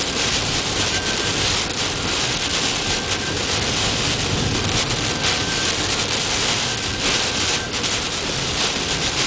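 Heavy rain falling on a car, heard from inside the cabin: a dense, steady hiss with many small drop hits.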